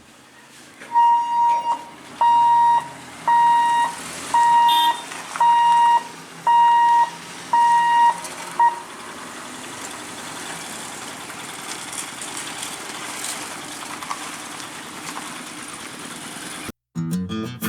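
A single-pitched horn or warning signal sounding in eight even beeps, about one a second, the last one cut short. Steady background noise follows once the beeping stops.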